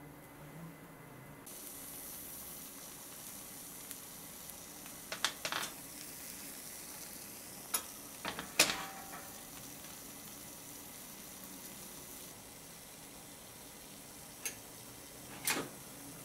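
A sandwich sizzling inside a closed stovetop hot sandwich maker over a gas flame: a steady hiss that thickens about a second and a half in. A few short sharp clicks break in, the loudest a little past the middle.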